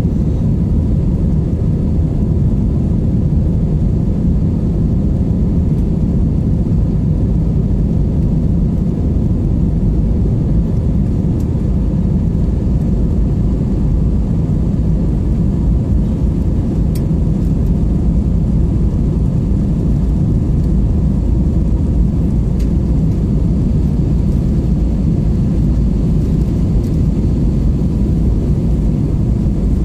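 Steady low rumble of a jet airliner's engines and the air rushing past, heard inside the cabin as the plane climbs after takeoff.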